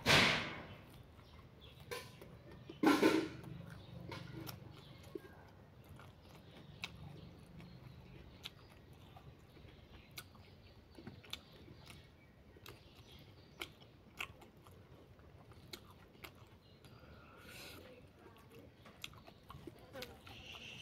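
A person eating by hand, close to the microphone: chewing and wet mouth sounds with many small soft clicks throughout, and two louder mouth sounds near the start, the second about three seconds in.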